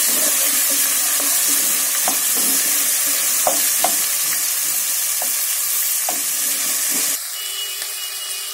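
Diced vegetables and peanuts sizzling in hot oil in a pan while a wooden spatula stirs them, with short scrapes and knocks of the spatula against the pan. About seven seconds in, the sizzle drops abruptly to a quieter level with a faint steady tone.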